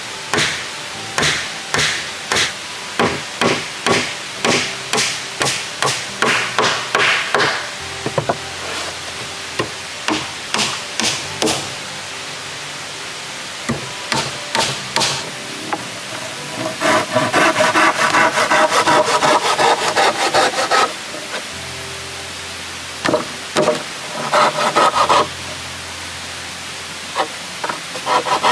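Scraping on weathered wooden planks by hand, in regular strokes of about one to two a second. In the middle it turns into a faster, continuous rasping, and short bursts of rasping come near the end.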